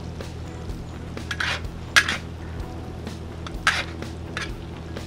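Metal spatula scraping and clattering across a steel plow-disc wok (discada) while stirring frying diced potatoes: several separate strokes a second or two apart, the loudest about two seconds in, over a steady low hum.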